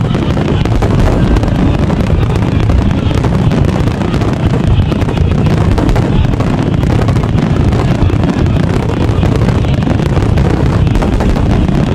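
A dense, unbroken fireworks barrage: rapid overlapping bangs and crackles with no pauses.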